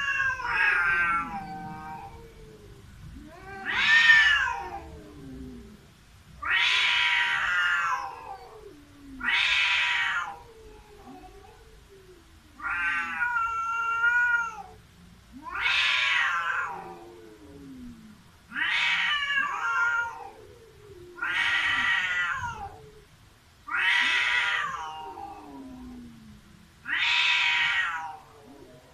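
Cats in a standoff, caterwauling: about ten long, drawn-out yowls, one every two to three seconds.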